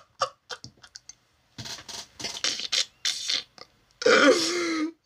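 A man laughing hard in short repeated bursts with gasps in between, ending in a longer, louder laugh near the end.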